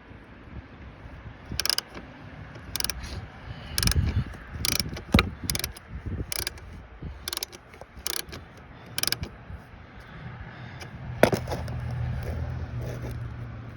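Hand tool working a steering stem bolt that spins round rather than loosening: about ten short sharp metallic clicks at uneven intervals. A louder click comes about eleven seconds in, followed by a low steady hum.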